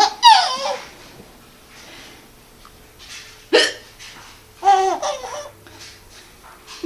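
A woman hiccuping and a baby laughing at each hiccup: a high, squealing laugh near the start, a short sharp hiccup about three and a half seconds in answered at once by another laugh, and one more small hiccup at the very end.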